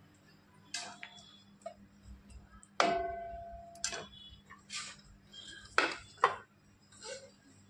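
A metal ladle clinks and knocks against a steel cooking pan and plates while curry is served, about seven separate knocks in all. The loudest, about three seconds in, is a metallic clang that rings on for about a second. Two more sharp knocks come close together near the six-second mark.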